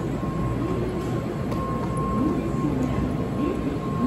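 Shinkansen train moving slowly alongside the platform, a steady low rumble with a thin, steady high tone above it.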